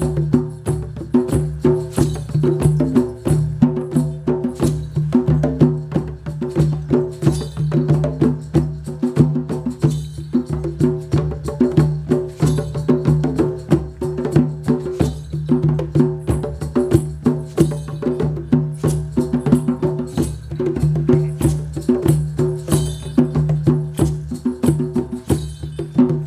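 Instrumental music: quick, rhythmic wooden clicks and taps over a steady low drone.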